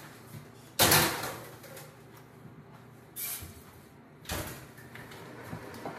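Kitchen oven door and roasting pan being handled as a tray of pumpkin goes into the oven: a loud bang about a second in, then two softer knocks a couple of seconds later.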